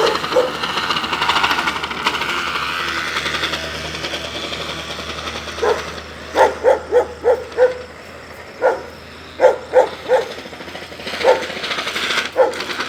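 A crushed plastic bottle wedged in a bicycle wheel, flapping against the spokes in a fast buzzing rattle that fades out about four seconds in. Then a dog barks repeatedly in short bursts through the second half.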